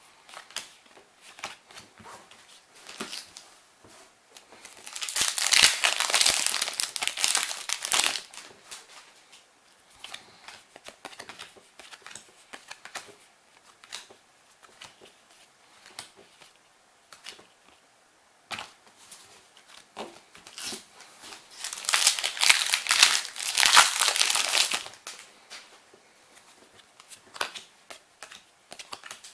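Foil booster packs of trading cards being torn open and the wrappers crinkled, in two loud bouts, with soft clicks of cards being handled in between.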